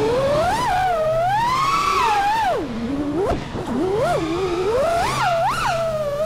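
Brushless motors and propellers of a 5-inch FPV freestyle quadcopter (RCinPOWER Wasp Major 1860 kV motors) whining, the pitch sweeping up and down continuously as the throttle is worked, with quick sharp rises and falls near the end.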